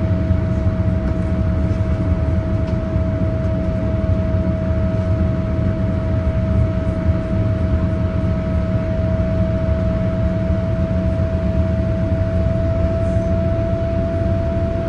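Boeing 787-8 cabin noise in the climb after takeoff: a steady, loud low rumble of engines and airflow, with a steady whine that edges slightly upward in pitch.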